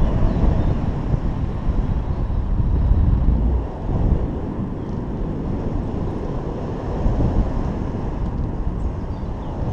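Wind rushing over the microphone of a camera carried by a paraglider in flight: a steady, low rumbling wind noise that dips briefly about four seconds in.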